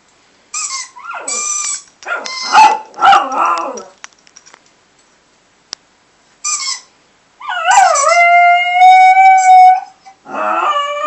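Chihuahua howling in answer to a squeaky toy sound played over a Skype call through the computer's speakers: short squeaks near the start and again about 6.5 s in, then one long steady howl of about two seconds, with another howl starting near the end.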